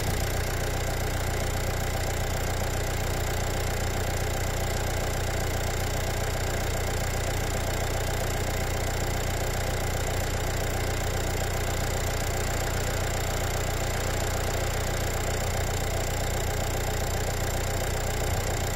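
Diesel engine idling steadily, with a thin steady high-pitched tone over it.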